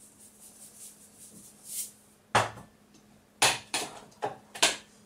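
Salt being shaken out of a small white shaker into the sauce: a short hiss, then five sharp shakes at uneven intervals in the last three seconds.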